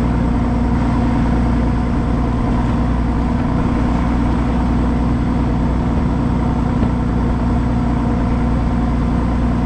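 A motor running steadily at an even speed, a constant hum with a strong low tone and no change in pitch or loudness.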